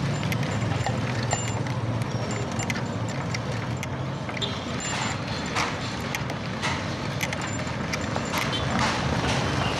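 A vehicle driving over a rough, potholed dirt road: a steady low engine hum with frequent short rattles and knocks.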